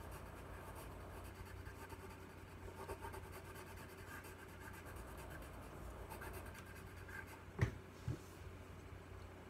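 Colored pencil scratching lightly across paper in short shading strokes, over a faint steady hum. Two soft knocks come about three-quarters of the way through.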